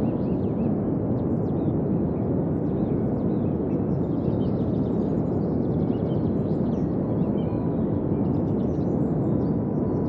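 Steady low rushing of rough, churning sea water, with faint bird chirps scattered high above it.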